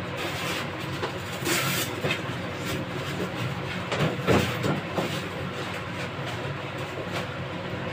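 A steady low hum, with brief rustles and knocks of plastic bags and fittings being handled, the loudest a little past four seconds in.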